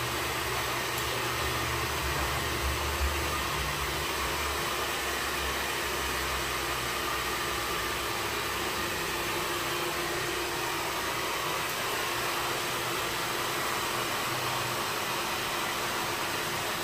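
Steady background hiss with a low hum underneath, the low hum a little stronger in the first few seconds; no distinct events.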